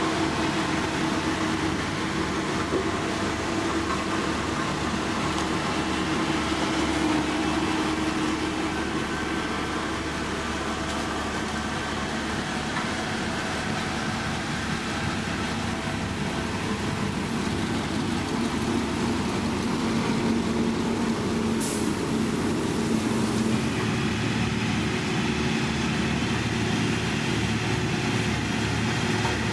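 Heavy diesel road-construction machinery running steadily, a continuous engine drone whose note shifts lower about two-thirds through. A brief hiss comes shortly after.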